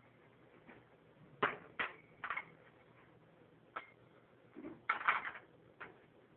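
Spatula knocking and scraping against a stainless steel frying pan as a pancake is lifted and turned: half a dozen separate clicks and short scrapes, the loudest cluster about five seconds in.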